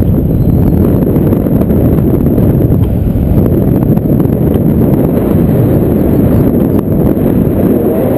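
Wind buffeting the camera's microphone during a paraglider flight: a loud, steady, low rush of noise.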